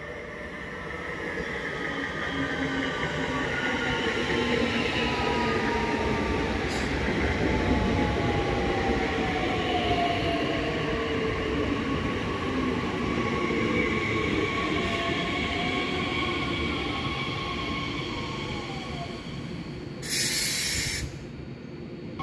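Bombardier Talent 2 electric multiple units passing at close range: rail rumble swells and then eases, over an electric traction whine made of several tones that slide down in pitch. A short, sharp hiss near the end.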